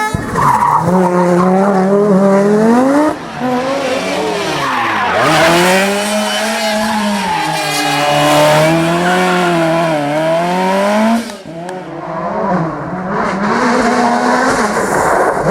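Rally car engines revving hard, the pitch climbing and falling again and again as the cars accelerate, shift and lift off on a stage. The sound breaks off sharply twice and picks up again with another car.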